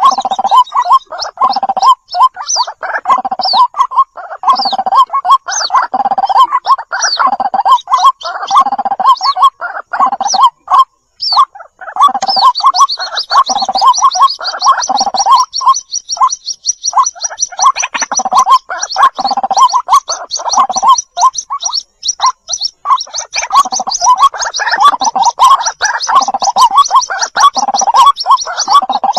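White-breasted waterhen chicks calling for their mother: dense runs of short repeated calls. About twelve seconds in, a fast, even series of high-pitched notes joins them.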